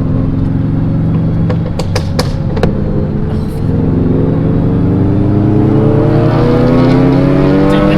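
Ford Focus ST engine running under way, with a few sharp cracks about two seconds in, then pulling hard with its pitch rising steadily through the second half as the car accelerates.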